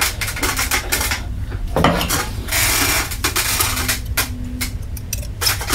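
Dry fiberglass cloth rustling and crackling as a gloved hand presses and smooths it down inside a hollow nose-cone mold. The sound is an uneven run of crisp clicks, with a denser rustle partway through.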